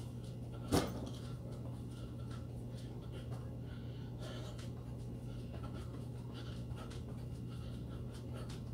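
A person panting hard while doing jumping jacks, with faint regular footfalls. One sharp thump comes about a second in, the loudest sound. A steady low hum runs underneath.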